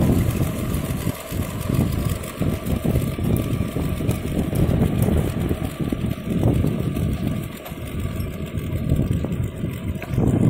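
Long 350 farm tractor engine running steadily while it drives a rotary tiller through garden soil.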